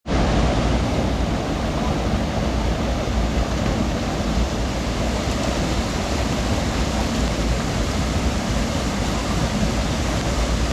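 Steady rush of river water pouring over falls.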